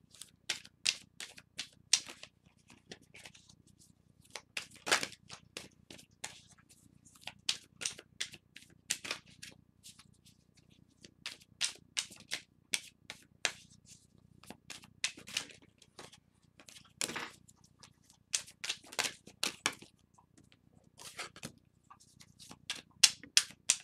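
A deck of tarot cards being shuffled by hand: runs of quick, irregular card clicks and snaps with short pauses between them.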